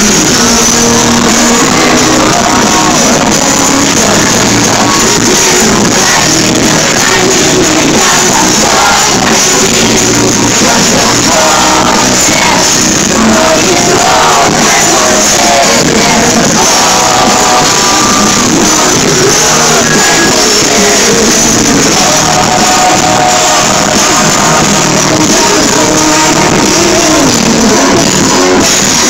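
Live pop concert music: the band's song with lead singing over amplified backing, loud and steady, echoing in a large arena hall.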